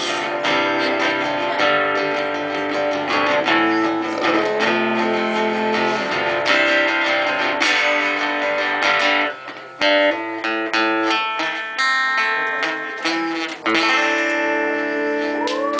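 Acoustic guitar played live, strummed and picked chords without singing. Near the end a chord is struck and left to ring.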